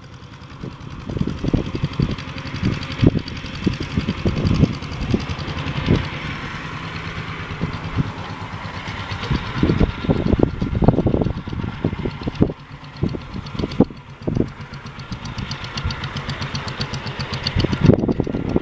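CC 201 diesel-electric locomotive hauling a passenger train away from the station, its engine running under load with a steady hiss and many irregular low thumps.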